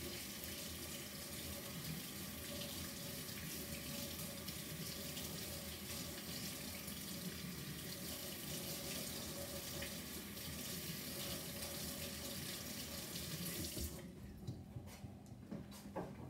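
Tap water running into a sink while sticky slime is washed off hands: a steady rush that stops about fourteen seconds in, followed by a few knocks and clatters.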